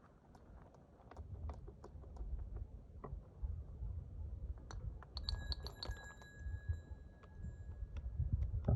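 Scattered small clicks and scrapes of hand tools working on a cow's hoof, over a low rumble. About five seconds in, a quick run of clicks ends in a metal tool ringing briefly.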